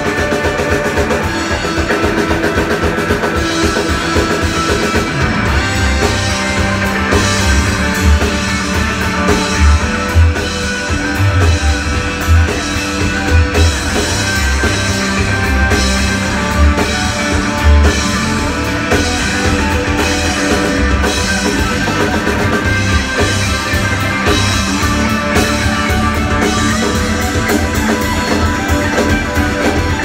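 A live rock band playing loudly on drum kit and electric guitar, with a steady heavy beat, heard from among the audience in the bar room.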